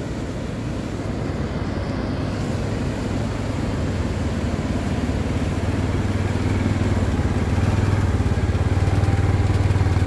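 Four-wheel ATV engine running as the quad drives across the sand, a steady low hum that grows louder as it comes up close.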